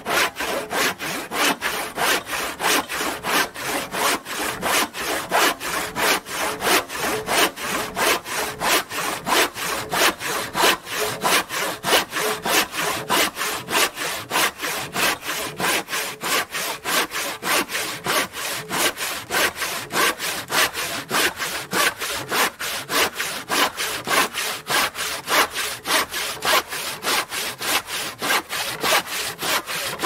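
Hand saw cutting through wood: rasping back-and-forth strokes at an even pace, about two to three a second.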